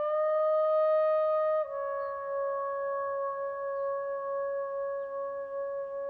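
Background instrumental music: a wind instrument sounds a long held note, steps down slightly about one and a half seconds in, and holds the lower note.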